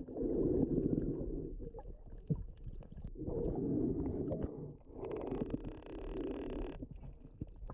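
Muffled underwater noise: low, uneven rumbling of water moving around the camera, coming in waves, with a few small clicks and a short hissing stretch about five seconds in.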